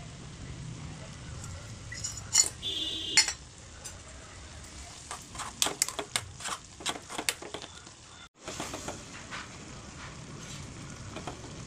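Instant noodles cooking in a metal kadai of boiling masala water: a steady bubbling hiss, with a metal spoon clinking and scraping against the pan a couple of seconds in, ringing briefly, and again from about five to seven and a half seconds in.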